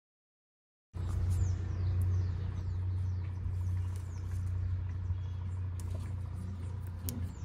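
Outdoor background: a steady low rumble with a few short, high, falling bird chirps in the first couple of seconds. The sound cuts in abruptly about a second in, after dead silence.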